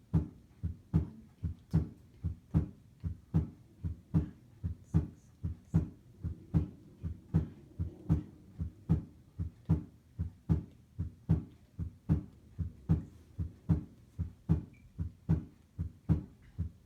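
Normal S1-S2 heart sounds played on a SAMII auscultation manikin: a steady, regular lub-dub at about 80 beats a minute.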